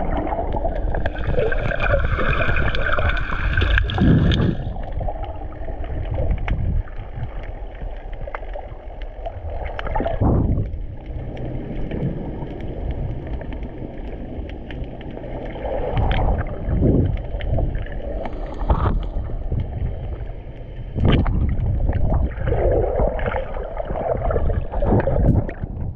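Water sloshing and gurgling over a snorkeler's camera microphone as it moves through the surface water, muffled and low, with several louder surges of splashing along the way.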